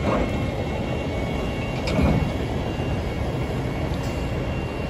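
Gondola cars of a freight work train rolling past over the rails, a steady rumble with one sharp clunk about two seconds in.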